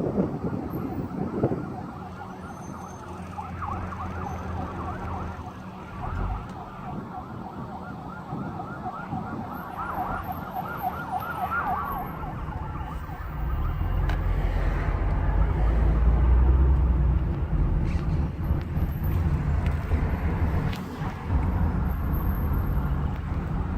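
Several emergency-vehicle sirens sound over one another, rising and falling rapidly. About halfway through they give way to a loud low rumble.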